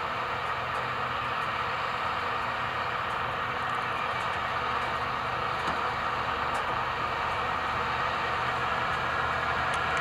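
Farm tractor's diesel engine running steadily under load as it pulls a plow, growing slightly louder toward the end.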